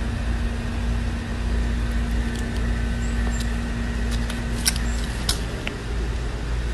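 Steady low rumble and hiss of outdoor background noise, with a faint steady hum that stops about five seconds in and a few light clicks just before.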